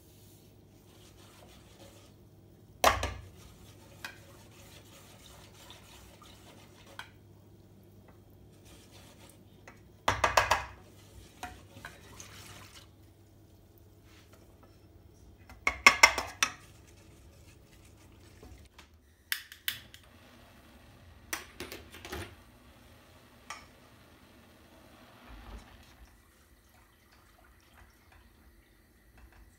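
A whisk and a plastic measuring cup clink and tap against a speckled granite-coated pot as ingredients are tipped in and whisked. The clinking comes in a handful of short bursts over a faint steady low hum.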